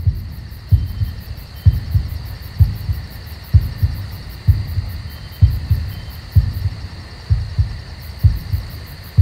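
Heartbeat sound effect: a slow, steady lub-dub double thump about once a second, over a faint steady high hiss.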